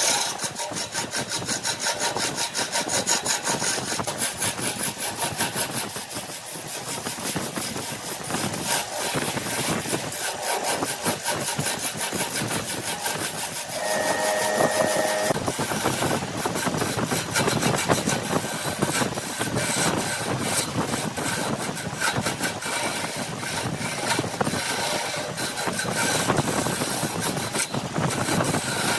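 Wood lathe running while a turning tool cuts the spinning wood: a continuous rapid scraping chatter, with a brief high whine about halfway through.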